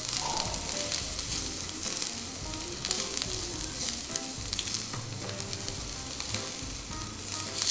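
Diced vegetables sizzling in freshly added oil in a wide, very hot frying pan, stirred and tossed with a spatula. The sizzle is steady, with scattered small crackles and scrapes of the spatula on the pan.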